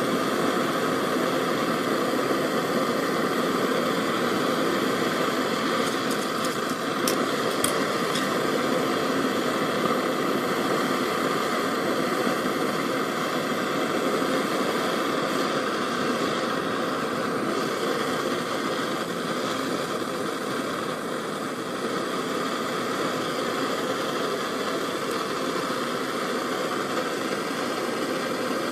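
Handheld propane torch burning with a steady hiss, its flame heating a copper ring terminal on heavy-gauge power wire for soldering.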